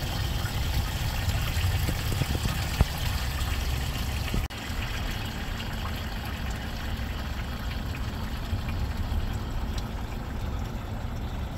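A boat motor running steadily with water rushing past the hull, a continuous low rumble under a wash of noise, with a brief drop about four and a half seconds in.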